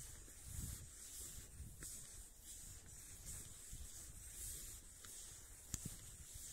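Cross-country skis swishing over snow in a steady stride, a soft swish about once or twice a second, over a low rumble on the microphone.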